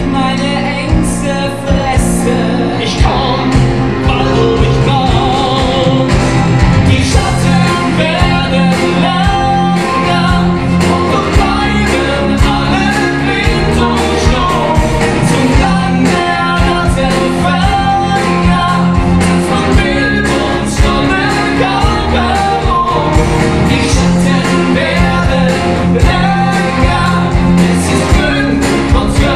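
Live musical-theatre song: two male voices singing a dramatic duet over band and orchestra accompaniment.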